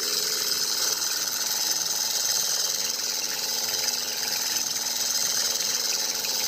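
Miniature model engine driving a small water pump, running with a fast, steady mechanical rattle.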